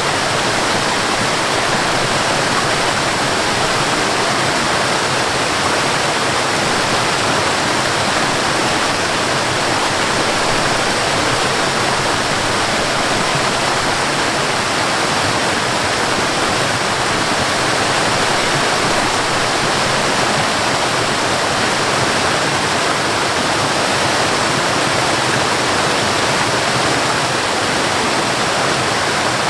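A high waterfall falling onto water, a steady, unbroken rushing with no change in level.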